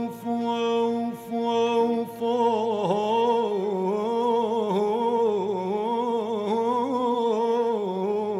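A single voice singing long held notes, steady at first and then wavering in vibrato from about three seconds in.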